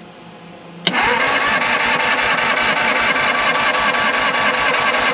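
1950 Ford flathead V8 cranked over by its starter with the spark plugs out for a compression test. It kicks in suddenly about a second in and turns over steadily with an even beat, without firing.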